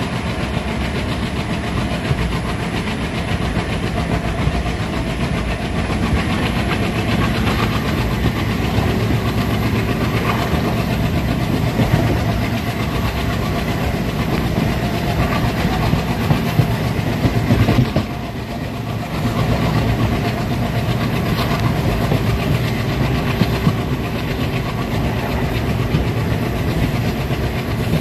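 Indian Railways ICF passenger coaches running at speed: a steady rumble of wheels on rail with clickety-clack over the joints. The sound drops briefly a little after two-thirds of the way in.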